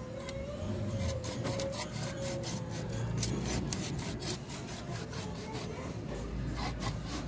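A cleaver cutting a fish into slices on a hard stone surface: rasping, scraping knife strokes that grow sharper and come several a second from about three seconds in.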